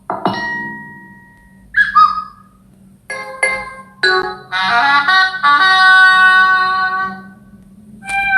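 Samsung Galaxy S25 Plus notification tones played slowed down, one after another. A struck chime rings out and fades, then comes a short two-note chime, a couple of quick plucks, and a longer melodic jingle from about four to seven seconds in.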